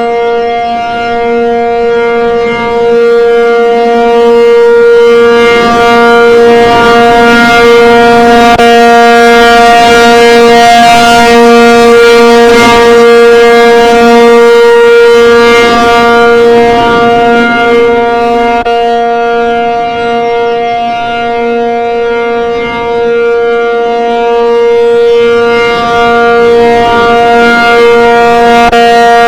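ACA P-50 siren sounding a steady alert, holding one pitch with strong overtones rather than wailing up and down. Its loudness swells and sags slowly.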